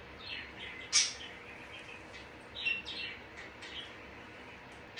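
Pet parrot giving a handful of short chirps and squawks, the loudest about a second in.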